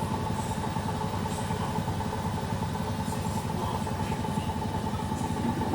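Front-loading washing machine running, most likely the CHiQ CFL80: a steady, fast low rumble under a constant mid-pitched whine, with no change in speed.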